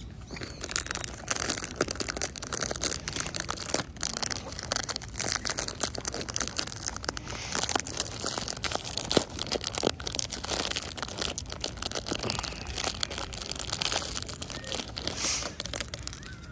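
Plastic food packaging crinkling and tearing as it is handled and opened close to the microphone, a dense, irregular crackle that stops just before the end.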